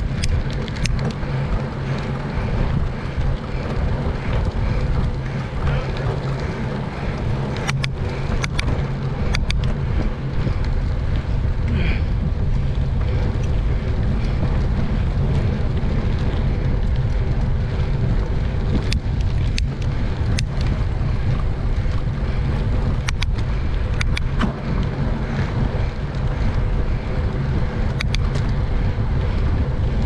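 Wind noise on a bike-mounted GoPro's microphone while cycling, with a steady low rumble and a few sharp clicks scattered through.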